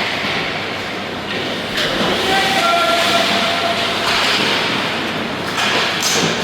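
Steady rushing din of a youth team game in a large indoor arena, with faint short calls about two to three seconds in.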